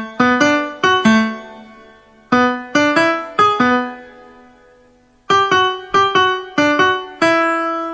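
Background music: a solo piano tune of single struck notes that ring and fade, played in short phrases with a lull of about a second before the last phrase.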